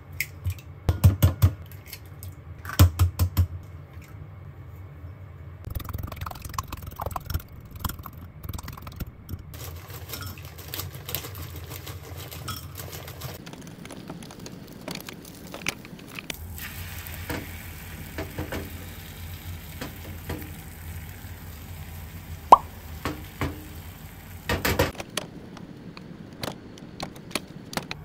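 Egg cooking sounds: eggs are cracked against the rim of a glass mug, heard as two clusters of sharp taps about one and three seconds in. Quick light clinks follow as the eggs are beaten in the mug. Later a spatula scrapes and turns a rolled omelette in a rectangular tamagoyaki pan on a gas stove.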